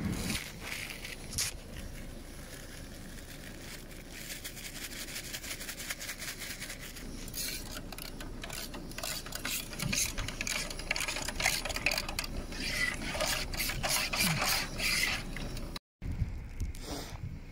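Small clicks, scrapes and rattles of gear being handled, growing busier in the second half, with a short dropout near the end.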